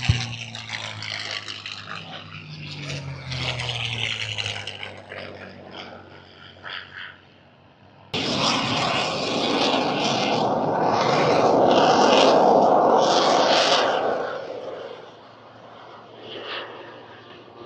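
Aircraft flying past, its engine pitch falling as it goes by. About eight seconds in the sound changes abruptly to a louder rushing pass that swells to a peak and fades away.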